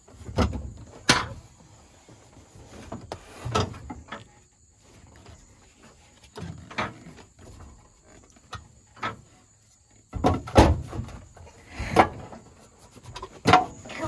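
Scattered knocks and clunks as a skid loader's hinged seat is lifted and a wooden board is wedged in to prop it up, coming in a denser, louder cluster near the end.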